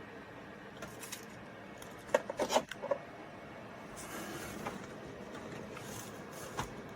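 Clicks and knocks of a desktop computer's case and power switch being handled. About four seconds in a steady whir comes up as the computer powers on and its fans start.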